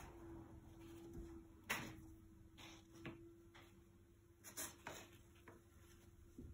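Faint, light taps and clicks of cut cardboard milk-carton pieces being picked up and set down on a tabletop, a handful at uneven spacing, the loudest about two seconds in, over a faint steady hum.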